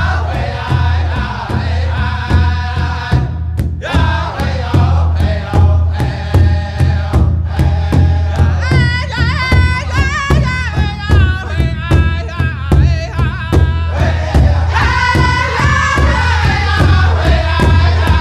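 Background music: a steady drum beat over a low drone, with a wavering, wordless melody line in the middle.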